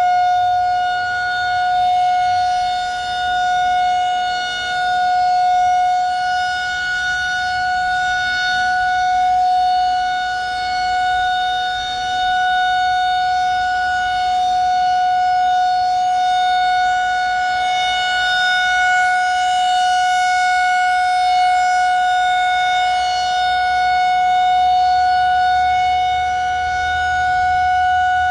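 Federal Signal 2001-130 electromechanical warning siren sounding its steady Alert signal, one long held tone. Its loudness swells and fades every few seconds as the rotating siren head sweeps past.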